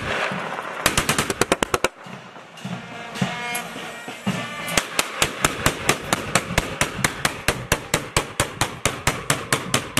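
Truck-mounted electronic wedding salute cannon (a multi-tube 'rocket launcher' rack) firing: a quick run of about ten bangs about a second in, a lull, then an even string of sharp bangs about four a second from about five seconds in.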